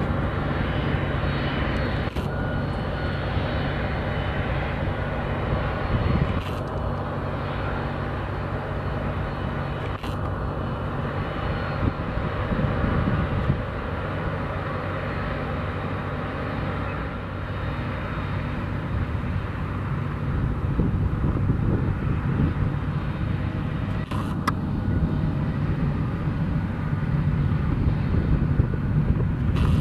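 Boeing 767-300 freighter's jet engines running at taxi power, a steady drone, with a few brief clicks.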